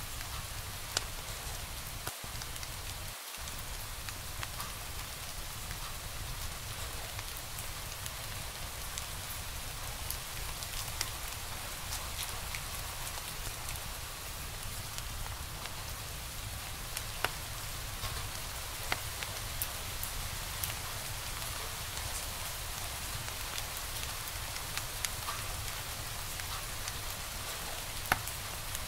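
Log fire crackling in a fireplace: a steady hiss with frequent small crackles and a few sharper pops.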